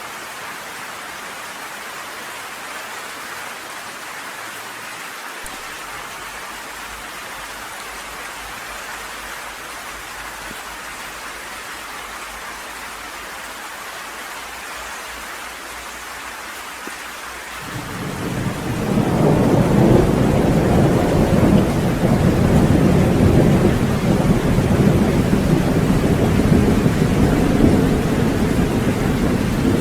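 Steady rain falling, then about eighteen seconds in a long, loud rumble of thunder swells up and keeps rolling over the rain.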